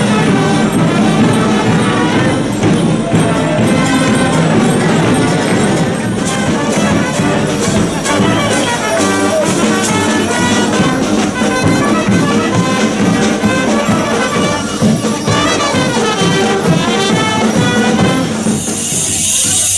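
Orchestral music with brass, playing steadily and loud; a high hiss comes in near the end.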